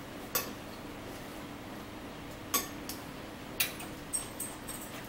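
Fork clinking against a plate while eating: a handful of sharp clinks, one near the start and several close together in the second half, over a low steady room hum.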